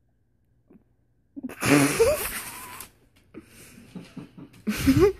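A person's non-speech vocal outbursts: two loud, breathy bursts, each with a rising pitch, about a second and a half in and again near the end, with quieter voice sounds between them.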